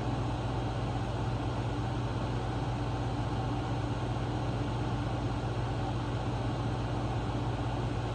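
Steady hum of a room air conditioner and fan: a constant low drone under an even hiss, with no other sound standing out.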